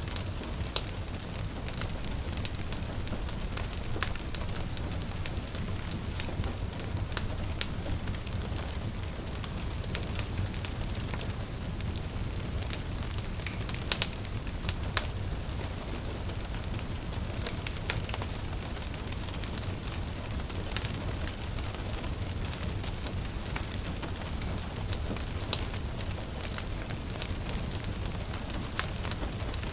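Wood fire crackling in a fireplace, with irregular sharp pops and snaps over a steady low rumble of the flames; a soft hiss of rain runs underneath.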